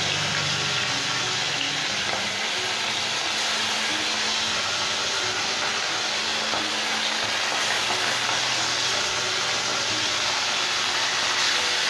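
Whole khoira fish shallow-frying in hot mustard oil, sizzling steadily as they fry.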